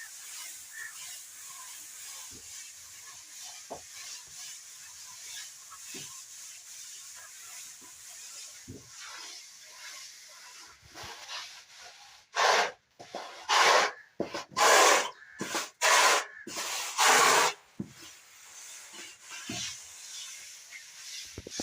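Plastering tool scraping and rubbing over a wall surface: faint scraping with light taps, then about six loud strokes in quick succession past the middle, then faint scraping again.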